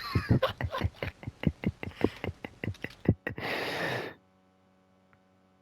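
Men laughing hard in quick breathy bursts, several a second, ending in a long gasping intake of breath; about four seconds in the sound drops to near silence.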